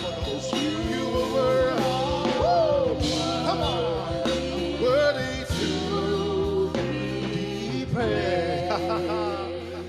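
Gospel worship music: sung vocal lines, several voices, over sustained keyboard chords and a bass.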